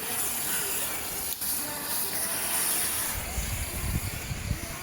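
Lit roman candle hissing and sputtering as it burns, the hiss starting abruptly. A low rumble joins in during the last second and a half.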